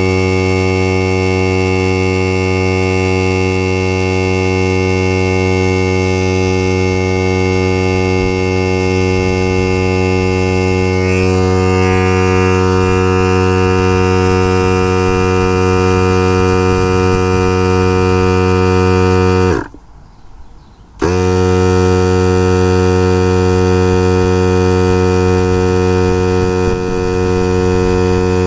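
Portable air compressor of a NOCO Boost+Air AX65 jump starter running steadily, inflating a car tyre from about 5 psi: a loud, even mechanical hum. It breaks off for about a second and a half about twenty seconds in, then carries on.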